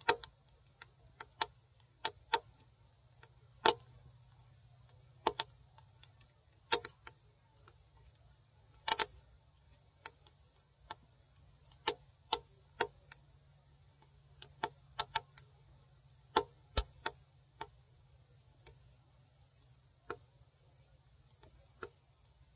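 Wood fire burning down to embers inside a small titanium camping stove: irregular sharp crackles and ticks, about one or two a second.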